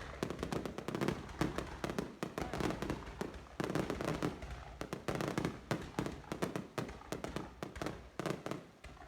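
Fireworks going off: a dense, irregular run of many overlapping bangs and crackles with no break.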